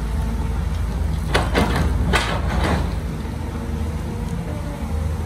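Heavy-equipment diesel engine running steadily, with a short burst of clattering and clanking about a second and a half in.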